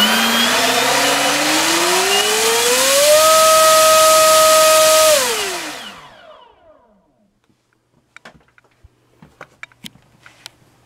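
Brushless outrunner motor (NTM Propdrive 3842 EF-1, 1300kv) spinning a 7x8 APC propeller on a thrust stand, run on a 5-cell LiPo, above the motor's listed rating. It spins up with a whine that rises steadily over about three seconds, holds at full throttle for about two seconds, then spools down and stops about six seconds in. A few light clicks and knocks follow.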